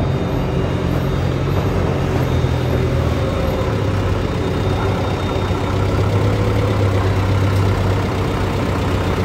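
Forklift engine running as the truck drives up carrying a loaded bin, a steady engine note that drops a little lower and grows somewhat louder about halfway through.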